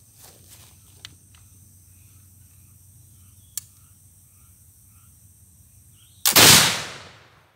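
Handmade flintlock muzzleloading rifle fired about six seconds in. A short crack comes a split second before a loud muzzle blast, which rings out and fades over about a second. The priming and main charge ignite on the first try.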